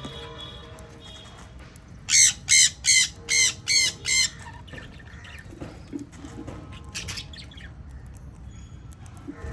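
Sun conure screeching: a quick run of six loud, harsh squawks about two seconds in, then fainter calls.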